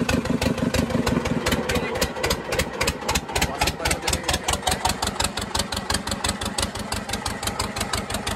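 A fishing boat's engine running steadily, with a rapid, even beat.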